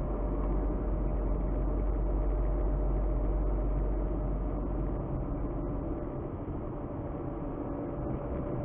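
Car on the move: steady engine and road noise with a deep rumble, which eases a little about five seconds in.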